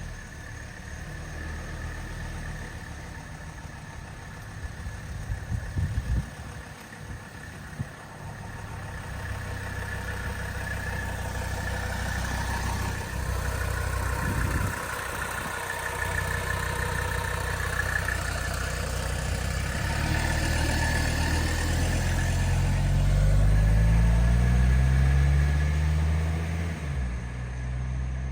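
1983 Mercedes-Benz 300CD's 3.0-litre turbodiesel inline-five running gently, then pulling harder in the last third, its engine note climbing and dropping back twice as the four-speed automatic upshifts. A couple of brief knocks come about 6 and 14 seconds in.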